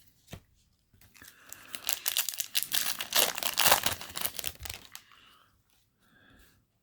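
Foil Yu-Gi-Oh! booster pack wrapper crinkling as it is torn open, a dense run of crackles lasting about four seconds, loudest in the middle.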